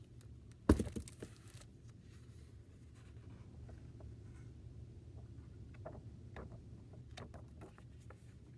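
A thump about a second in as the picture book is set down on the desk, then soft page turning and paper rustling with a few light clicks, over a steady low room hum.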